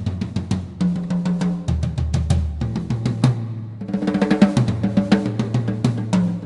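Premier Elite series birch drum kit being played in a steady beat of bass drum, snare and cymbals, with a busier run of strikes about four seconds in.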